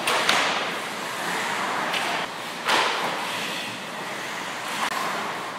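Hockey skate blades scraping and carving on rink ice in several loud swells, with a couple of sharp clacks of stick on puck, one right at the start and one near the end.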